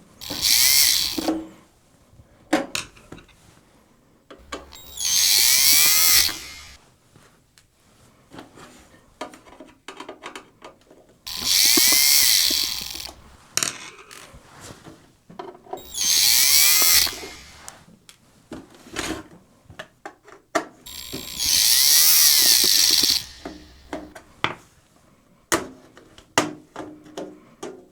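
Electric screwdriver run in five short bursts, each a motor whine that rises as it spins up, backing out the screws on the rear panel of a DVD/VHS combo player. Small clicks and handling noises come between the bursts.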